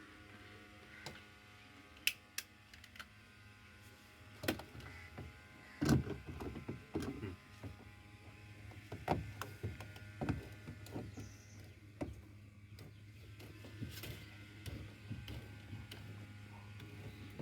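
Scattered clicks and knocks of washing-machine parts being handled and fitted, with a denser run of knocks about six seconds in, over a steady low hum.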